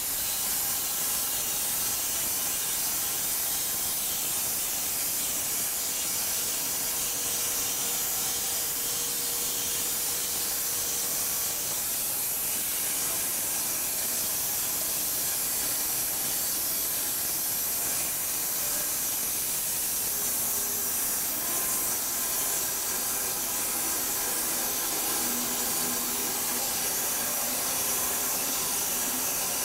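Homemade wide-cut bandsaw mill sawing through a row of elm cants side by side: a steady hiss of the band blade cutting the wood, with faint steady tones underneath from the running saw.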